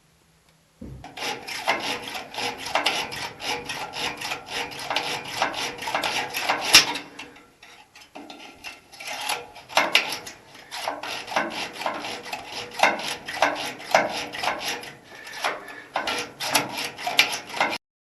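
Rapid, irregular hand scraping against the fuel truck's metal bodywork, many quick strokes in a row. It pauses briefly about seven and a half seconds in and cuts off abruptly near the end.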